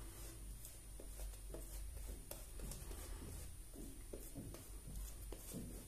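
Badger shaving brush swirling shaving-cream lather over the chin and neck: a faint, soft scratchy brushing with small irregular ticks and wet squishes.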